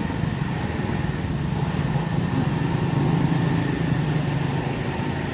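Low hum of a motor vehicle engine running, growing louder through the middle and then easing off, over steady outdoor background noise.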